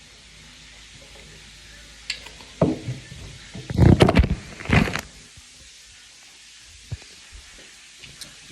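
Chicken frying in hot oil, a steady sizzle, with a cluster of loud knocks and clatter about halfway through.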